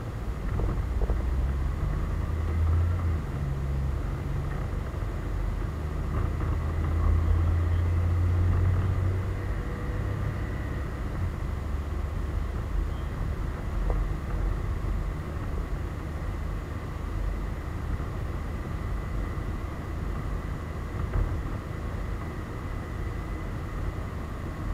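Yamaha DragStar Classic's V-twin engine running at cruising speed, heard as a steady low rumble mixed with wind rumble on an action camera's microphone. The rumble swells briefly in the middle.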